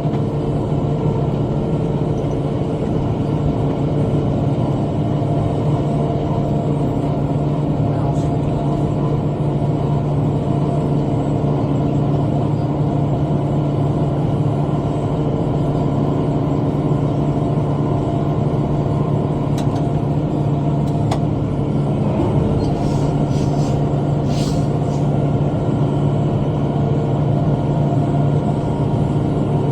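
Tractor engine running steadily while pulling a bush hog rotary cutter through brush, with a few brief clicks and scrapes late on.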